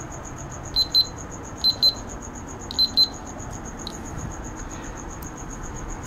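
The piezo buzzer on a recycled remote-control fan's circuit board, now working as a continuity tester, gives short high beeps in pairs, about one pair a second, as the test probes are held on a small LED.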